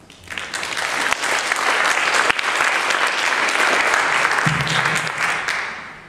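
Audience applauding, a dense patter of many hands that builds just after the start and dies away near the end.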